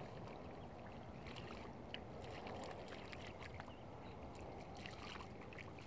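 Faint outdoor background: a steady low rush with scattered short high chirps and ticks.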